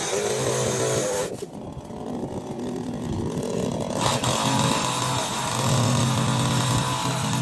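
Two-stroke chainsaw running and cutting into a tree trunk, its engine note shifting up and down under load.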